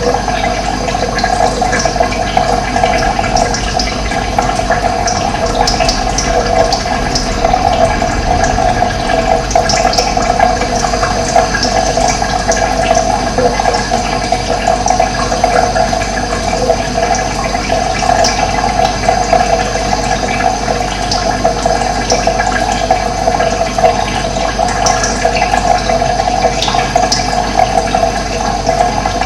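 Steady rush of running water, with occasional short high bird chirps over it.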